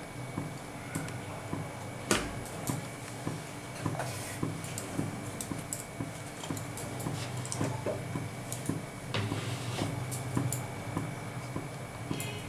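Faint scattered ticks and crackles over a steady low background as mustard oil heats in an empty kadai on a gas stove.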